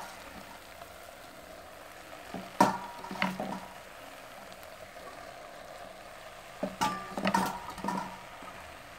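Cabbage and tomato sauce sizzling faintly in a metal pot over a fire, with two short clusters of knocks and clinks against the pot, about two and a half seconds in and again about seven seconds in.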